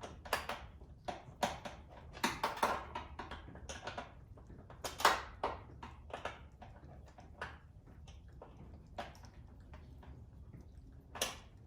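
Irregular clicks and knocks of hand tools and metal parts being handled while a tow-mirror bracket is fitted, the loudest knock about five seconds in.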